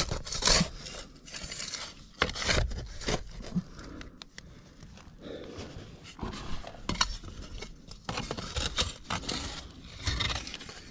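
Loose dirt and stones being scraped and scooped by hand and with a small digging tool: uneven scrapes and scuffs with small clicks of stones.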